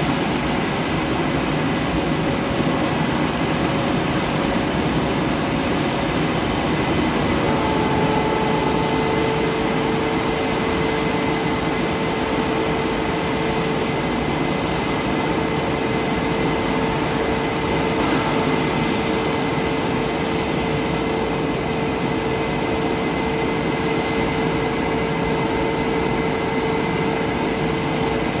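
Blue Angels F/A-18 Super Hornet jet engines running at ground idle: a loud, steady rush with high turbine whines over it. A further steady whine joins about a quarter of the way in, as another engine comes up to idle.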